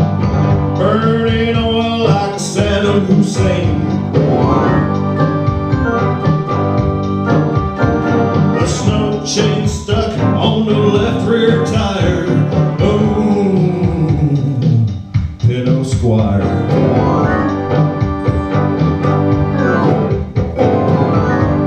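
A man singing into a handheld microphone over a Casio electronic keyboard holding sustained chords. The music drops out briefly about two-thirds of the way through.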